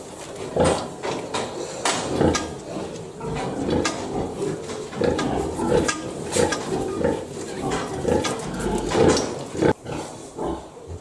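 Pigs grunting and squealing, irregular and overlapping, with sharp knocks now and then.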